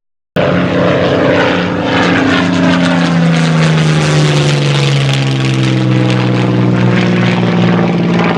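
Propeller-driven airplane flying past at an airshow, its engine note loud and steady and slowly dropping in pitch as it goes by. The sound cuts in abruptly after a brief silent gap at the start.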